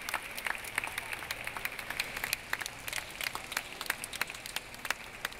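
Audience applauding, a crowd clapping with many separate claps.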